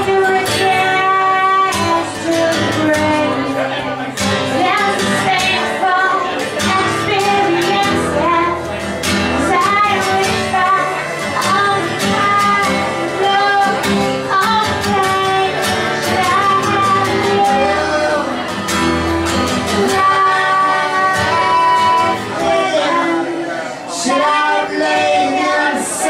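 A song performed live: singing with instrumental accompaniment and a steady rhythm.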